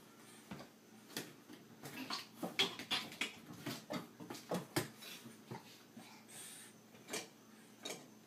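Plastic cat flap clacking and rattling in its frame as a cat pushes through it: a run of quick knocks thickest in the middle, then a few spaced ones near the end.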